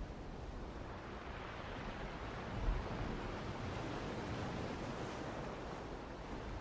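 Soft ocean-wave ambience: a steady, gentle rushing wash, swelling slightly about two and a half seconds in.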